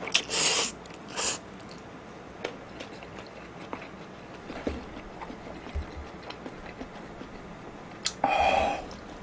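A person slurping instant ramen noodles from chopsticks: a loud slurp just after the start and a shorter one about a second in, then small chewing and mouth clicks. Another short noisy sound comes near the end.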